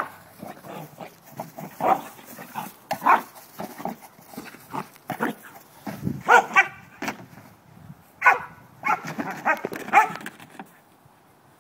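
A blue heeler (Australian cattle dog) barking repeatedly in short, sharp barks, some in quick runs of two or three, as it herds a Jolly Ball. The barking stops shortly before the end.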